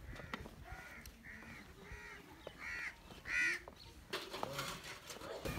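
Crows cawing: about seven caws in a row, roughly two a second, the loudest about three and a half seconds in.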